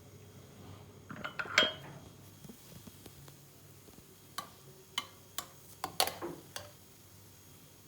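Dishes and cutlery clinking in short, sharp knocks: a cluster about a second in, then a run of about six clinks later on.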